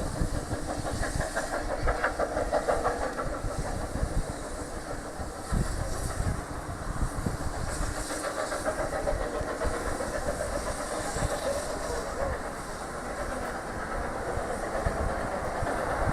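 Steam rail motor No. 93 running along the line, heard from on board: a steady rumble and hiss of the moving carriage with irregular low knocks of the wheels over the track.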